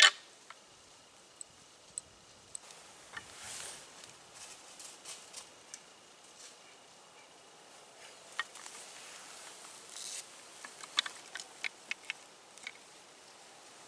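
One sharp clack of rattling antlers right at the start, then faint scattered clicks and rustles as the antlers and gear are handled, with a cluster of light clicks about ten to thirteen seconds in.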